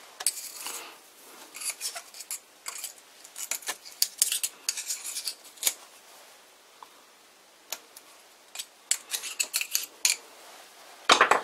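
Metal lathe chips being raked and picked off the workpiece and toolpost with a thin metal hook. The sound is an irregular run of light metallic scratches, clinks and jingles.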